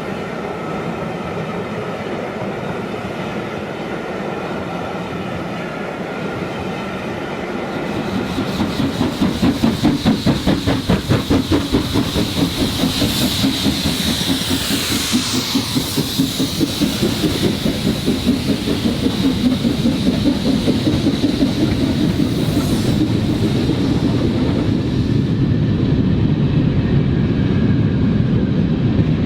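OO-gauge model train running on the layout track: a rapid rhythmic clicking of wheels over the rail joints with a high whine. It grows louder about a third of the way in as the train draws near.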